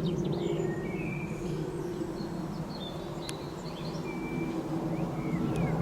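Low, steady jet rumble from an approaching Boeing 737, growing louder toward the end, with birds chirping over it.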